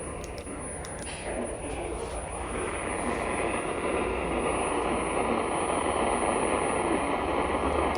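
Steady hiss of static from a weather radio receiver, growing a little louder about two seconds in and cutting off suddenly near the end.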